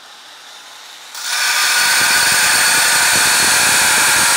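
Knife maker's belt grinder taking steel off a blank. A loud, steady abrasive rasp starts about a second in, with the steel pressed into the corner of the belt where it hangs just off the platen edge for the fastest stock removal.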